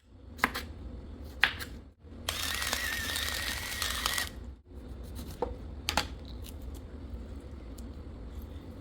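Sharp clicks and knocks of handled objects, the loudest about one and a half seconds in, and a small motor whirring for about two seconds near the middle.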